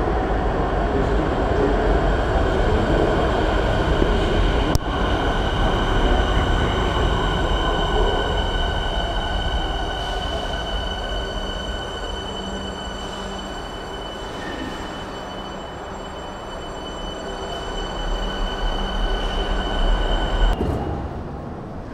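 Jinan Metro subway train running, heard from inside the carriage: loud rumble of wheels on the rails with a steady high-pitched whine from the drive. There is a sharp click about five seconds in, and the noise drops suddenly near the end.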